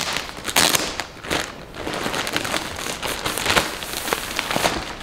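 Clear plastic packaging crinkling and crackling irregularly as it is peeled off and pulled away from a tightly rolled comforter.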